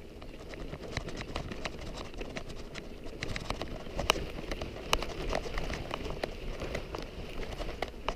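Footsteps on a rocky dirt trail: an uneven run of crunches and sharp clicks of stones underfoot.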